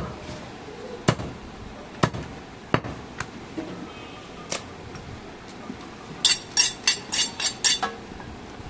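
Heavy butcher's knife chopping goat meat and rib bone on a round wooden log block: single sharp chops about once a second, then a quick run of about seven sharper strokes near the end.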